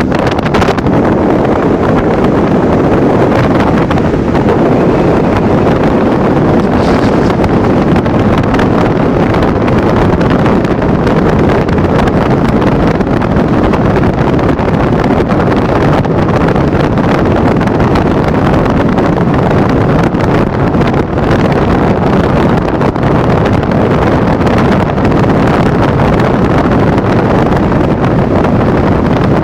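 Loud, steady rushing noise of a Toyota Vios on the move, with wind buffeting the microphone; no distinct screech stands out above it.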